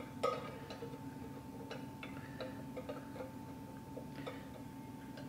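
Flathead screwdriver tightening a small screw to fix the handle onto a stainless steel Travel Berkey lid: light, irregular metal clicks and ticks as the screw is turned.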